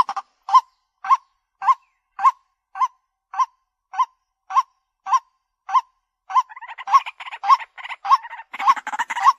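White-breasted waterhen calling: a steady series of single hooting notes, a little under two a second. Over the last few seconds a rapid chattering of further calls joins in between the notes.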